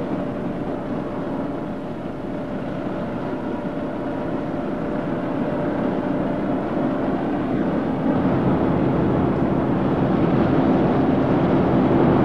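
Combine harvester engines running, a steady mechanical drone that grows gradually louder.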